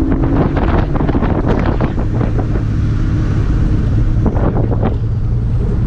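Straight-piped, Vortech-supercharged 4.6-litre two-valve V8 of a 2004 Ford Mustang GT running as the car is driven, heard from inside the cabin as a loud, steady low exhaust drone.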